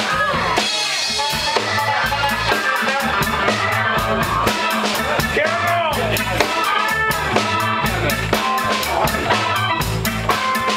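Live rock band playing with no words heard: a steady drum-kit beat under bass, keyboards and electric guitar, with gliding melodic lines in the middle.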